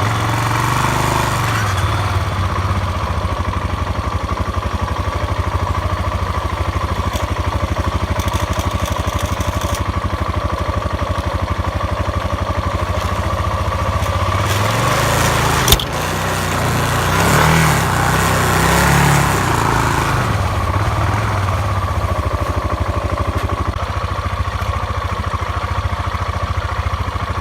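Motorcycle engine running steadily while riding. A single sharp knock comes just before the middle, and the engine grows louder for a few seconds right after it before settling back.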